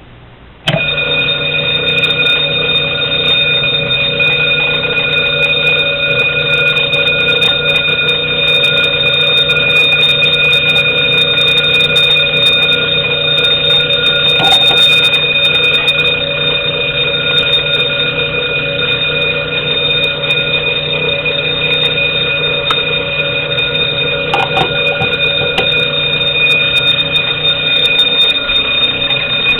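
Standard Electric/Johnson Controls SAU-3-1 fire alarm bell starting suddenly about a second in and then ringing continuously at a steady, loud level during a fire alarm test.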